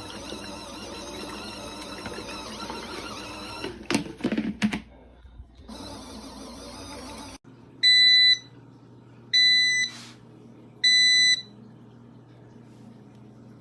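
Portable mini washing machine running with a steady motor whir, broken by a few quick knocks about four seconds in. The run cuts off abruptly, then three loud electronic beeps sound, each about half a second long and about a second and a half apart, over a low hum.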